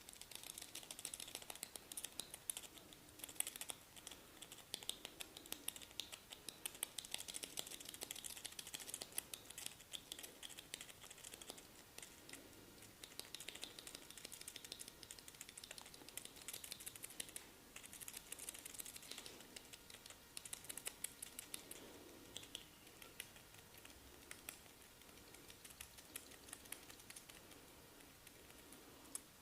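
Fingers scratching and pulling through hair on the scalp, making quiet, rapid, dry crackling in uneven spells.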